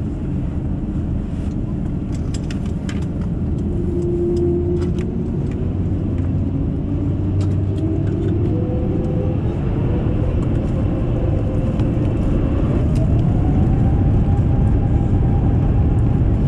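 Airbus A350-900's Rolls-Royce Trent XWB engines heard from inside the cabin while taxiing for takeoff: a steady low rumble that grows louder, with a whine that rises in pitch over several seconds and then holds.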